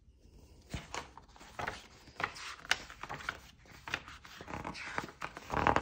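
Paper pages of a softcover colouring book being flipped through quickly: a run of rustles and flaps, the loudest near the end.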